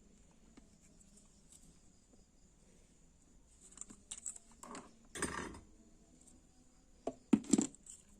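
Hands working on the plastic housing of an energy-saving bulb as its electronic ballast is taken out. Small clicks and a scraping rustle come about five seconds in, then a few sharp knocks near the end.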